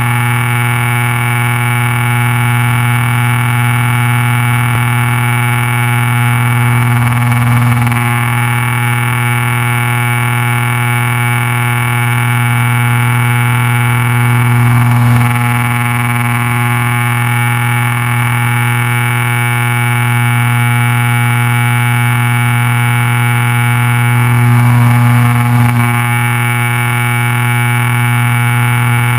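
Piper PA-31-350 Navajo Chieftain's twin piston engines and propellers running steadily in flight, a loud, even drone heard in the cockpit, swelling slightly twice. The sound is coloured by vibration from the way the camera is mounted.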